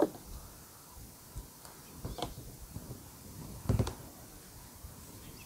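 Channel-lock pliers clicking and knocking against the bent metal of an RV compartment door opening as it is bent straight: a sharp click at the start, a few taps about two seconds in, and the loudest cluster of knocks a little before four seconds.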